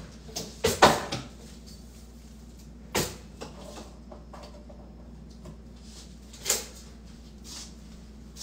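A few scattered knocks and clacks of kitchen cupboard doors and drawers being opened and shut, with two close together near the start, one about three seconds in and another a little after six seconds.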